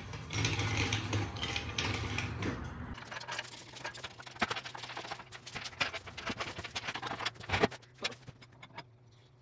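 A low rumble for the first three seconds, then scattered light metal clinks and knocks from a steel engine-hoist chain and hooks being handled while rigging an engine.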